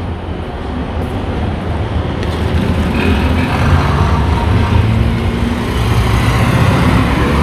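Street traffic: passing cars and heavier vehicles as a steady low rumble of engines and tyres, growing gradually louder toward the end.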